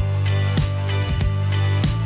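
Background music with a steady beat: deep bass notes and held chords under a regular drum hit.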